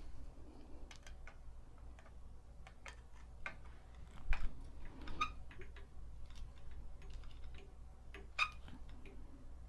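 Irregular light clicks and taps of small parts being handled on a Singer 223 sewing machine as its motor and belt are fitted, with a firmer knock about four seconds in.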